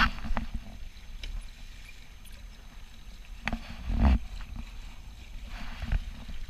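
Water splashing and slapping against the hulls of a Dart 18 catamaran under sail, over a low rumble of wind on the microphone, with a few knocks, the loudest about four seconds in.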